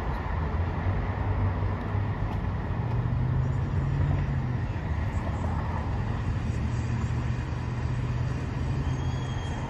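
Union Pacific diesel locomotives running with a steady low engine drone while switching cars, mixed with road traffic passing close by.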